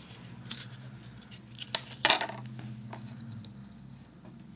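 A few sharp clicks and taps as a wooden ruler is moved against a tablet's glass screen, the loudest a quick double knock about two seconds in, over a low steady hum.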